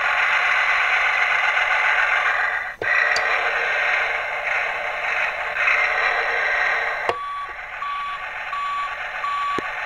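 Tonka Rescue Force tanker fire-truck toy playing its electronic sound effects through its small built-in speaker: a dense, noisy effect with a brief break about three seconds in, then about five evenly spaced beeps at one pitch near the end.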